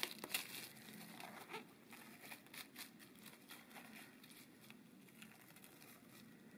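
Plastic cling film crinkling and crackling as hands stretch it over a glass bowl and press it down onto the custard's surface, with the sharpest crackles in the first half second.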